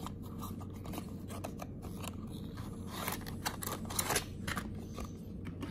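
A small cardboard box for a 1/64 diecast car being handled and opened by hand: a run of small clicks and scrapes as the end flap is worked open, busiest a little past the middle.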